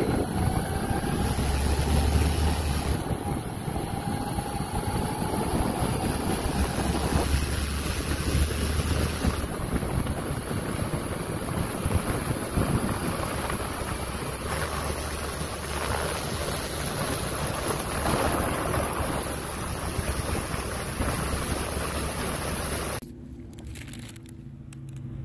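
Motorcycle running at cruising speed on the open road, buried under heavy wind rushing over the handlebar-mounted microphone. Near the end the sound cuts off abruptly to a much quieter, still background.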